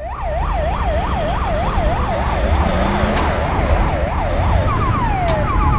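Police siren in a fast yelp, its pitch sweeping up and down about three times a second. Near the end it switches to quick falling sweeps. A low traffic rumble runs underneath.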